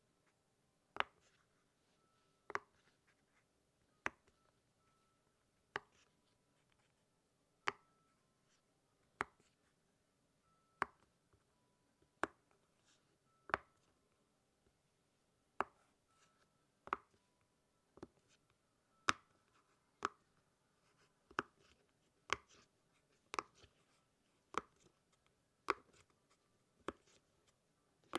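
Silicone Pop It fidget toy bubbles being pressed one by one, each giving a short sharp pop, about one every second and a half.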